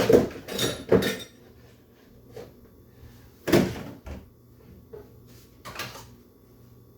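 Kitchen cupboard doors and their contents knocking and banging during a search for a measuring cup: a series of separate knocks, loudest in the first second and about three and a half seconds in.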